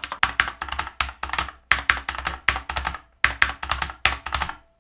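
Mechanical keyboard with Outemu Red linear switches (Rampage Exhero) being typed on rapidly: quick runs of key clicks, broken by short pauses about every second and a half.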